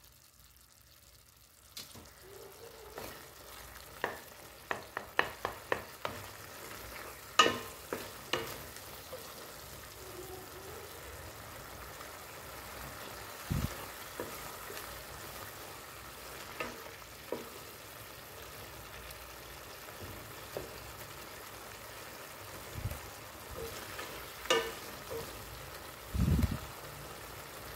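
Mashed pumpkin sizzling in hot oil in a steel pan, fried down on a raised flame to drive off its last water, while a wooden spoon stirs it and now and then clacks and scrapes against the pan. The sizzle comes up about two seconds in, and the spoon clicks come in a quick run a few seconds later and again near the end.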